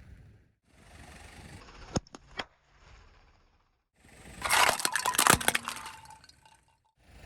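Things cracking and crunching as a car tyre rolls over them: a few sharp cracks about two seconds in, then a loud stretch of crackling and snapping about halfway through.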